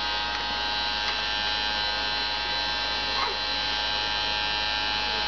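Toy octopus bubble machine running, its small electric motor giving a steady, even buzzing whine.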